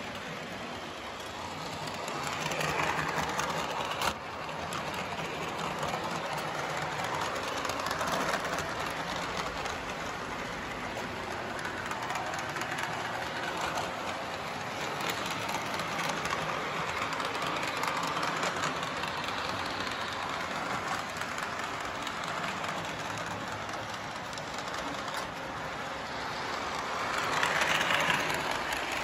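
Electric model trains running on their track: a steady rumble and clatter of wheels on rails that swells louder as a train passes close, loudest near the end. There is a single sharp click about four seconds in.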